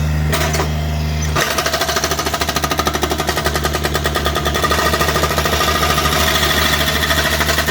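A jackhammer breaking up concrete: rapid, even hammering that starts about a second and a half in, over a steady low engine drone.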